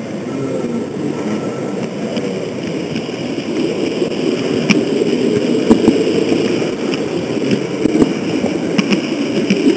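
H0-scale model train running along the track, heard up close: a steady rumble from its motor and wheels, with a few sharp clicks from the wheels over the rails.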